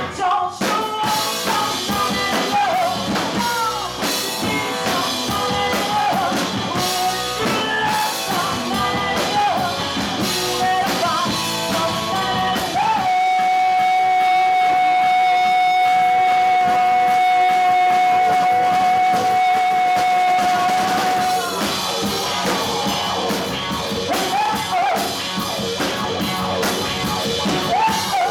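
Live rock band: a woman singing into a microphone over electric guitar, electric bass and a drum kit. About halfway through, one long note is held steady for roughly eight seconds before the singing moves on again.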